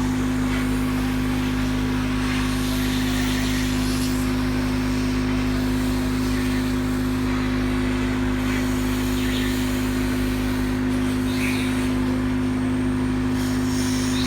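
Electric hot-air blower running steadily, a constant motor hum with a rush of air, used to heat and dry a freshly washed motherboard.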